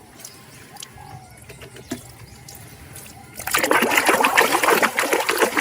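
Water running and splattering onto a toy being rinsed clean, starting suddenly about three and a half seconds in; before that only a few faint handling clicks.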